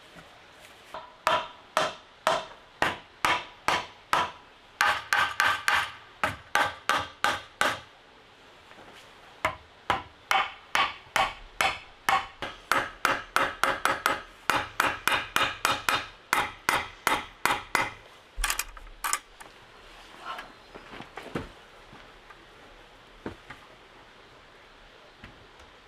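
Hammering: fast, even blows at about three a second in two long runs, with a short pause about eight seconds in, then a few scattered knocks near the end.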